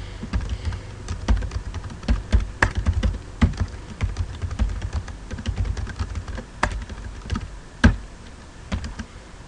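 Typing on a computer keyboard: a run of quick, irregular key clicks, with a few louder strokes, the loudest about three quarters of the way through.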